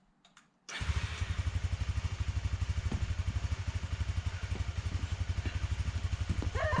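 Honda Dominator single-cylinder motorcycle engine starting abruptly about a second in and settling into a steady, evenly pulsing idle.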